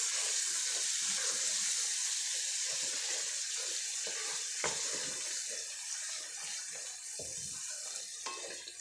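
Chopped fenugreek leaves and onions sizzling in hot oil in an aluminium kadai, with a wooden spatula stirring and scraping them around the pan. The sizzle is a steady hiss that eases slightly toward the end.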